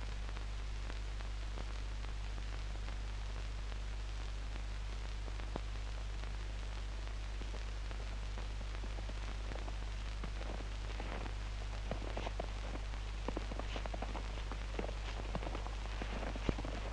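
Steady hiss of blizzard wind and blowing snow over a constant low hum. From about ten seconds in come irregular crunches of boots in deep snow, growing more frequent near the end.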